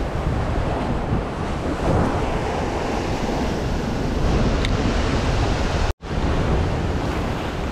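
Surf breaking and washing against a rocky shoreline, with wind buffeting the microphone in a low rumble. The sound cuts out for an instant about six seconds in.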